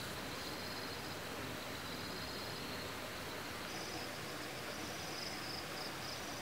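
Insects trilling in short high-pitched spells, one after another, over a steady background hiss.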